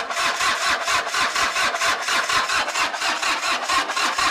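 Kia Bongo diesel engine being cranked by its starter, fed directly at the solenoid to bypass a faulty starter relay. It turns over in an even rhythm of about five compression pulses a second without catching.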